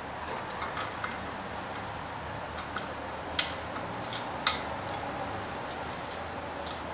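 A few light metallic clicks and taps from a bolt and bracket being handled and fitted, the two sharpest about a second apart past the middle, over a low steady background noise.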